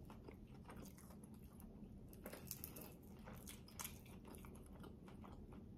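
Faint chewing of a bite of spicy fried chicken, with scattered small mouth clicks and a couple of slightly louder crunches.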